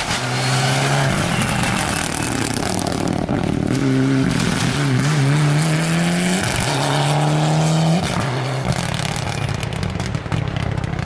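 Mitsubishi Lancer Evolution rally car's turbocharged four-cylinder engine accelerating hard through the gears, its note climbing and dropping back at each shift. Near the end the engine note gives way to a rushing noise as the car goes away.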